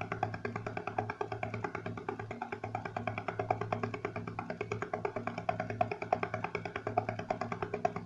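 Background music with a quick, steady percussive beat over plucked-string and sustained tones.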